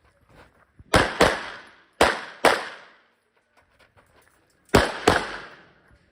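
Handgun shots fired in quick pairs, double taps about a third of a second apart: three pairs in all, each report ringing out briefly. Faint clicks come between the pairs.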